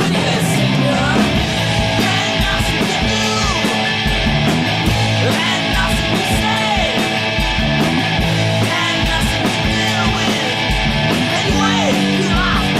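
Rock music soundtrack with a steady beat.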